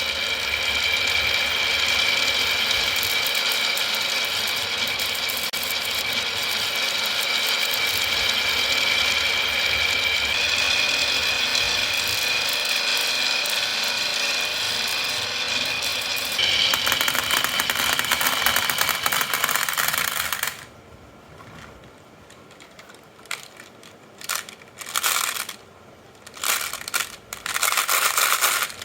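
Marbles rolling and clattering along a wooden HABA marble-run track in a dense, steady rattle. About twenty seconds in it thins out to scattered clatters.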